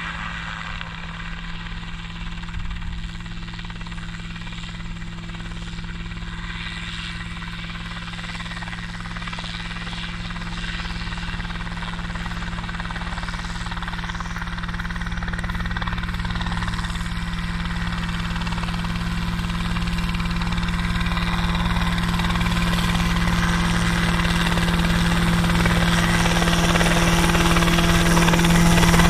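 Homebuilt single-seat helicopter running, its engine and rotor making a steady drone that grows louder throughout as the helicopter comes closer, low over the ground.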